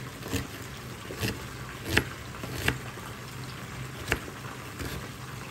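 Kitchen knife slicing a red onion on a plastic cutting board: a sharp knock each time the blade reaches the board, about once a second and unevenly spaced, loudest about two seconds and four seconds in. A steady low hum runs underneath.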